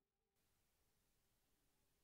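Near silence: a gap between two pieces of background music.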